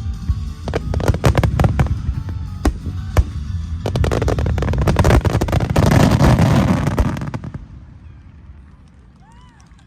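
Fireworks display: a quick run of sharp bangs, then a dense crackling barrage of bursts for about three seconds that dies away about seven and a half seconds in.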